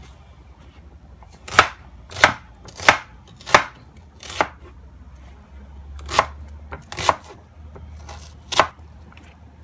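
A kitchen knife chopping a peeled onion on a plastic cutting board: about eight sharp chops, a run of five, a short pause, then three more.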